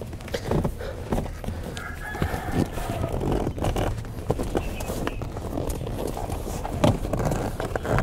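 A rooster crows once about two seconds in, and hens cluck, over scattered knocks and rustles from the Jeep Cherokee's rear seat being folded and pushed into place.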